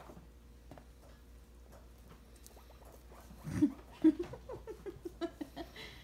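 Pet guinea pig squeaking for a treat: a quick run of short squeaks, about four a second, starting about three and a half seconds in, the first ones the loudest.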